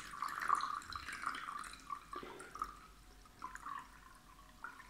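Water poured from a glass bottle into a ceramic bowl, a thin stream splashing and trickling into the water already in it. The splashing is fullest in the first two seconds and becomes quieter and more broken in the second half.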